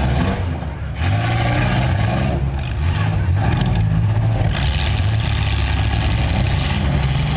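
Demolition derby car engines running and revving loudly, briefly dropping off just under a second in.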